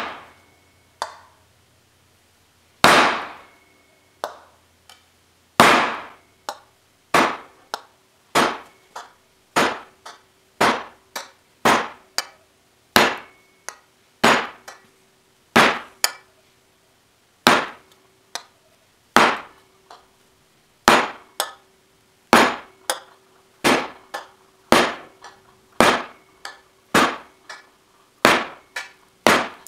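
Rubber mallet striking the back of a ball peen hammer held against an aluminum fender panel on a sandbag: a steady run of sharp knocks, about one to two a second, each with a short ring. The knocks are punching in the outer body line for a recessed bead detail.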